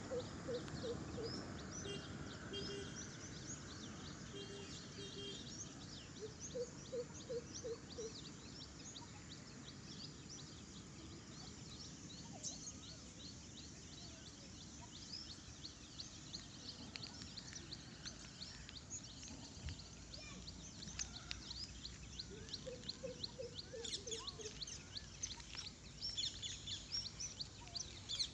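Many small birds chirping and calling in roadside trees, the chirps thickest near the end. Three times a lower call of five or six quick, evenly spaced notes rings out: near the start, about seven seconds in, and again about twenty-four seconds in.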